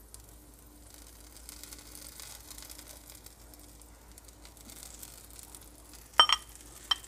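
Faint brushing and low sizzling as a silicone pastry brush spreads melted butter over a flatbread toasting on low heat in a nonstick frying pan. About six seconds in come two sharp, ringing clinks, the second smaller, as a utensil knocks against metal or glass.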